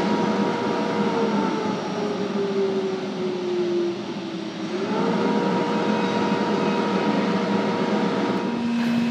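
A CNC router's chip-extraction vacuum blower running loud with a steady whine. About a second in, the whine sags in pitch over about three seconds as the blower is switched off and spins down. About five seconds in it climbs quickly back up to speed and runs steadily again.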